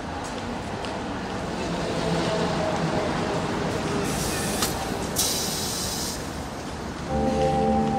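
Steady rain-like hiss, with two brief brighter bursts of hiss in the middle. Sustained music chords come in about seven seconds in and rise in level.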